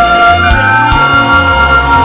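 Recorder playing a slow gospel melody in long held notes over a backing track with bass and percussion.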